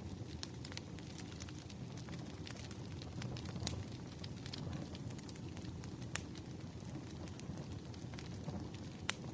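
Firewood burning with a steady low rumble and frequent irregular pops and crackles, a few of them sharper and louder.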